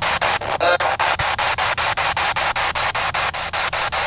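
Spirit box sweeping through FM radio stations: a steady hiss of static, chopped into rapid clicks about seven times a second. A brief snatch of a station's sound comes through about half a second in.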